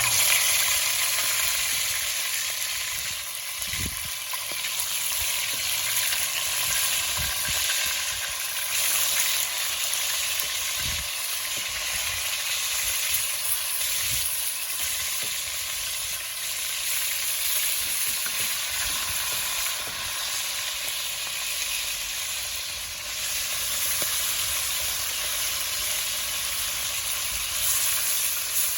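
Seasoned chicken pieces sizzling in hot oil in a pot, a dense steady hiss that starts suddenly as the chicken goes into the oil, with a few faint knocks from pieces being moved.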